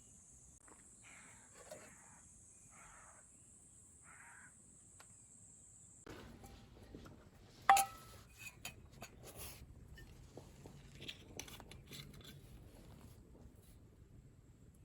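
A steady high-pitched drone with four short calls, cut off about six seconds in; then scattered crackles and small knocks, with one sharp ringing metallic clink nearly eight seconds in.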